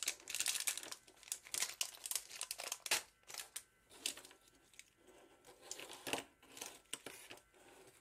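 Clear plastic accessory packets crinkling as they are handled, along with the rustle of silicone test-lead cables being moved. The crinkling comes in short irregular bursts, with a pause about halfway through.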